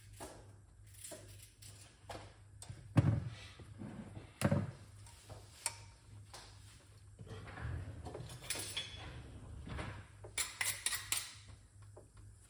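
Kitchen handling sounds: scattered knocks and light clatter of utensils and cookware, with two louder thuds about three seconds in and a second and a half later.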